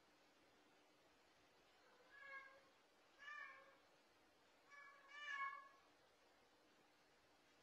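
A domestic cat meowing faintly four times over about four seconds, the last meow the longest and loudest.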